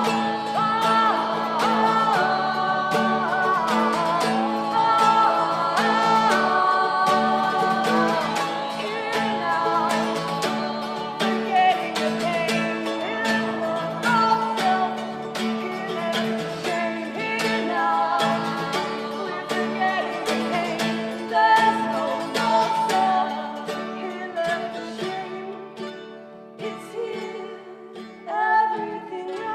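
Live acoustic guitar music, plucked and strummed, with wordless singing over a held low note. The playing thins out and gets quieter towards the end.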